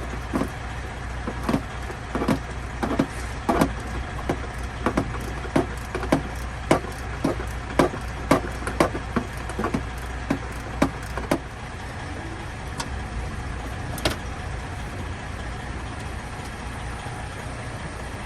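Ratchet wrench backing out a size-10 bolt: a regular click with each swing, about every two-thirds of a second, which stops about eleven seconds in. A steady low hum runs underneath.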